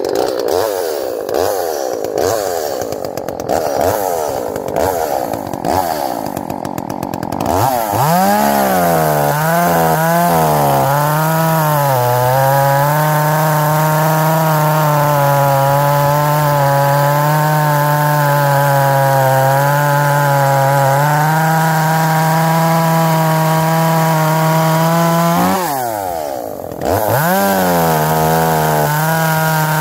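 Lightly ported, muffler-modded Echo CS330T top-handle two-stroke chainsaw, tuned slightly rich. It runs at low speed with uneven throttle for several seconds, then goes to full throttle cutting through a walnut log, its pitch sagging as the chain bites. About 26 seconds in the throttle drops briefly before it goes back into the cut at full speed.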